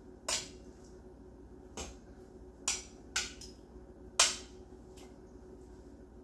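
About six sharp, irregular clicks of kitchenware, from a plate and utensil knocking against the plate and the pot rim, as raw chicken breasts are moved from a plate into a pot of broth. The loudest click comes about four seconds in.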